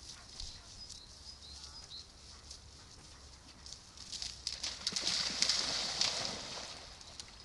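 A black dog plunging into a lake and splashing through the shallows. The splashing starts about halfway through, is loudest for about two seconds, then fades.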